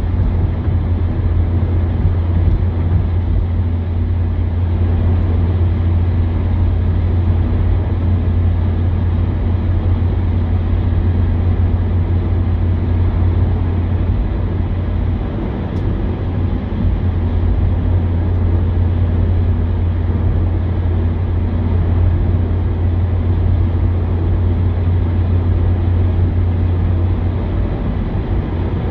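Steady low drone of a car driving along a main road, heard from inside the cabin: engine and tyre noise holding even throughout.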